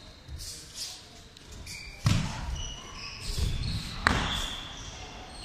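Two sharp slaps with a low thud, about two seconds apart, as a thrown aikido partner lands in breakfalls on a padded mat.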